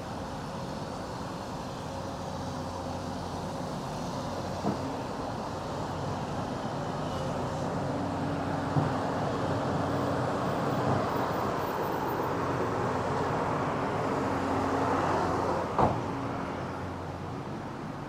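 Street traffic: a motor vehicle passes, its noise building slowly to a peak about fifteen seconds in and then falling away, over a steady engine hum. Three sharp knocks stand out along the way.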